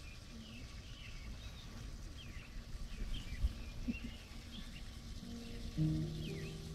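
Small birds chirping over and over, with a low rumble underneath. About five seconds in, music starts with low held notes.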